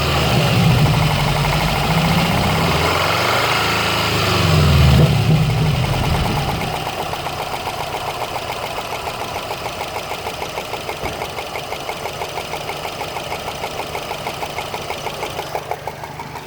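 2013 Subaru Impreza WRX's turbocharged 2.5-litre boxer four running, with a heavy, uneven low rumble for about the first six seconds. It then settles to a steadier idle with a regular ticking of about five ticks a second. The owner calls the ticking loud, likens it to a golf ball sliding around inside the engine, and places it near the turbo without finding its cause.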